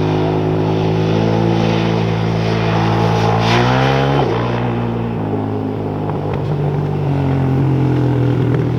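ATV engine running hard under throttle, its pitch climbing about three seconds in and dropping suddenly just after four seconds, then holding fairly steady, with wind and track noise underneath.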